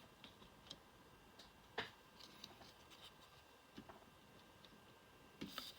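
Near silence with a few faint, scattered clicks and ticks from trading cards being handled, the clearest about two seconds in and a small cluster near the end.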